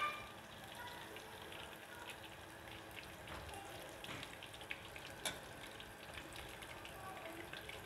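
Breaded chicken drumsticks deep-frying in hot oil: a faint, steady sizzle full of small crackles and pops, with one sharper click about five seconds in.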